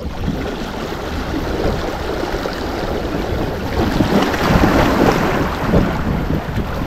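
Small sea waves washing and splashing over shoreline rocks, with wind rumbling on the microphone; the wash swells louder about four seconds in.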